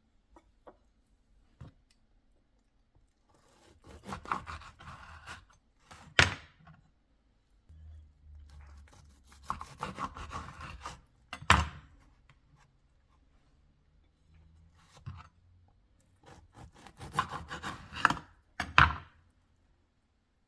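Knife cutting through food on a wooden cutting board: three rounds of sawing and crunching, each ending in a sharp knock.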